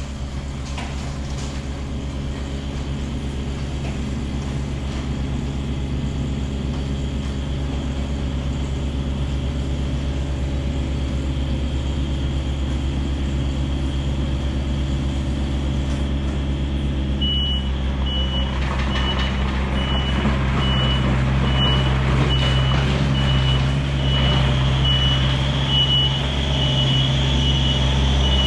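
Diesel engine of a piece of heavy equipment running steadily and growing gradually louder. From a little past halfway a backup alarm joins it, beeping at an even pace of a bit more than one beep a second.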